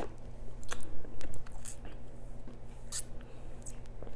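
Close-miked mouth sounds of sipping a thick chocolate cake shake through a straw: scattered wet clicks and smacks, a few every second.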